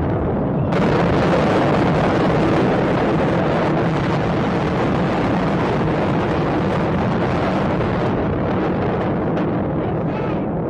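Rumble of a huge demolition explosion and fireball: a dense, steady roar with no separate blasts, easing slightly toward the end.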